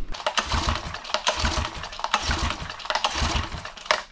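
Mercury 3.5 hp four-stroke single-cylinder outboard being cranked over by its pull-start recoil rope, several pulls in a row, with the spark plug out for a compression test. The rope rasps out and the engine turns over without firing, with uneven low thumps from each compression stroke.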